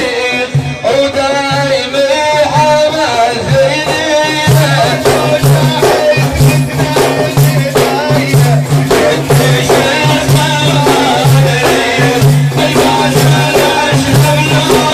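Sufi dhikr music: a man's voice chanting a melodic line, with frame drums and rattling jingles beating a steady rhythm that comes in strongly about four seconds in, under a low repeated chant.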